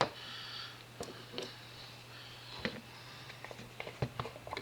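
Light clicks and taps of small model parts and screws being handled on a workbench, with a short rustle at the start and a quick cluster of taps near the end.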